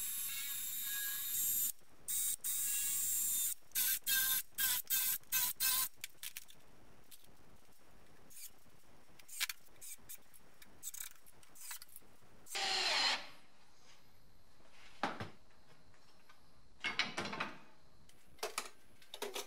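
Cordless drill working on a sheet-metal bench top: two runs of a second or two, then about six short trigger bursts as holes are drilled and screws driven. After that come a few scattered knocks and rattles of metal being handled, the loudest near the middle.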